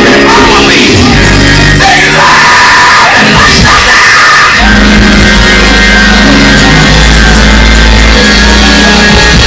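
Loud, distorted live church music, with sustained bass notes that shift pitch every second or two. Yelling voices rise over the music in the first couple of seconds.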